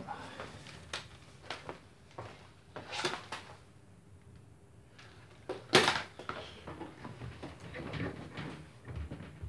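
Front panel of a front-loading washing machine being handled and worked loose: scattered clicks and knocks, the loudest about six seconds in.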